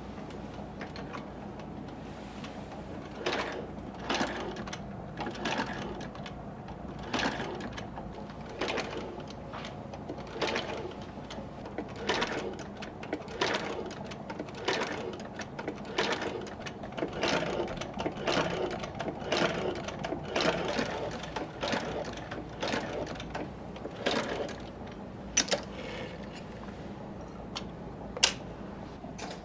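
Shoe-repair stitching machine sewing a sole: a steady motor hum with a stroke roughly every half to one second, and two sharp clicks near the end.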